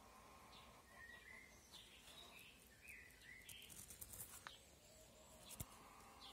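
Near silence with faint bird calls: several short chirps and slurred notes, mostly in the first half, and one sharp click about five and a half seconds in.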